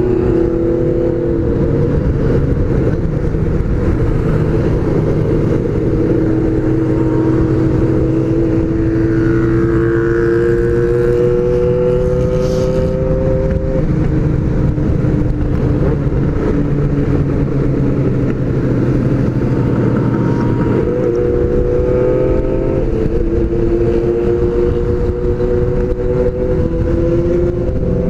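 Honda CBX750F air-cooled inline-four motorcycle engine running under way at road speed, its steady note slowly climbing in pitch and dropping back twice, over a constant low rumble of wind on the microphone.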